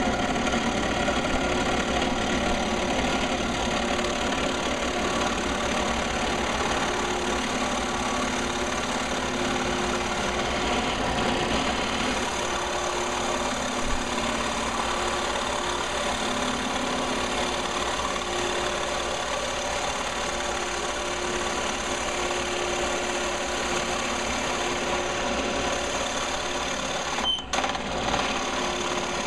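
Benchtop drill press running steadily, its spade bit boring into a wooden dowel. The sound breaks briefly near the end.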